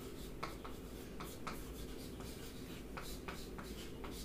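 Chalk writing on a chalkboard: a string of short, irregular scratching strokes as letters are written out.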